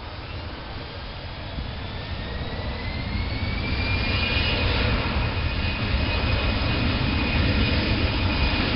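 Jet engines of an Airbus A320-family airliner spooling up as it rolls down the runway: a rumble with a whine that rises in pitch over the first few seconds, then holds steady as the sound grows louder.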